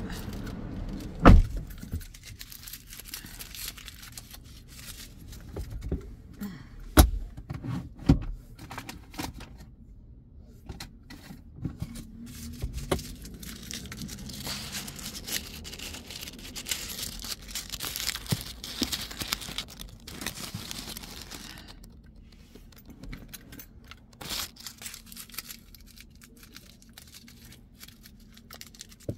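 Handling noises inside a parked car: sharp knocks about a second in and again around seven and eight seconds, among faint rustling and small clicks.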